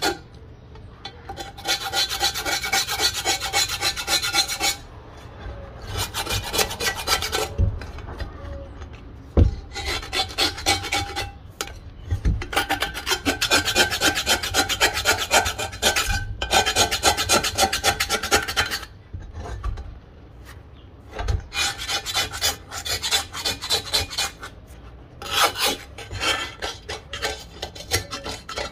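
Knife blade scraping the dark crust off old cast-iron cookware, in runs of quick rasping strokes broken by short pauses. A few dull knocks come in between the runs.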